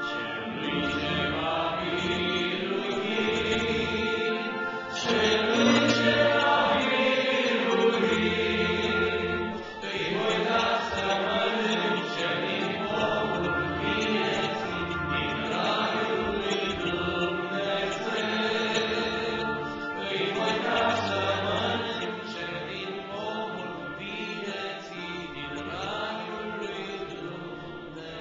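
Two male voices singing a Romanian Pentecostal hymn together into microphones, in sustained melodic phrases over steady low notes.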